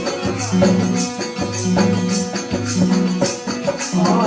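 Instrumental passage of a Rajasthani desi veena bhajan between sung lines: rattling shaker-type percussion keeps a steady beat over a low note pattern that repeats about once a second, with a melody line above.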